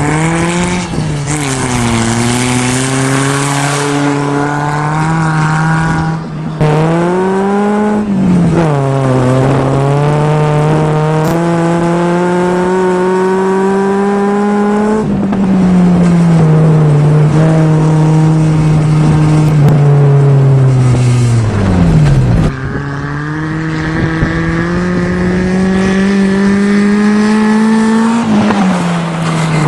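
Nissan 200SX engine pulling the car up through the gears on a test drive, its note rising steadily and dropping back at each gear change, easing down to a low pitch about two-thirds of the way through before accelerating again.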